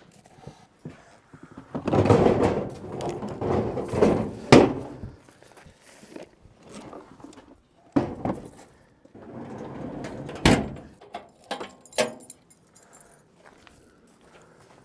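Tools and gear being handled and rummaged through: rustling clatter in two spells, with a few sharp knocks and clicks.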